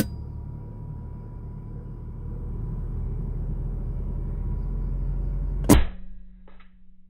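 A PCP air rifle fires a single shot about five and a half seconds in: one sharp crack, by far the loudest sound, over a steady low rumble.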